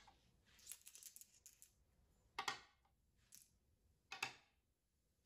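Go stones being set down on the board: a few faint, sharp clicks. The clearest come about two and a half seconds and four seconds in.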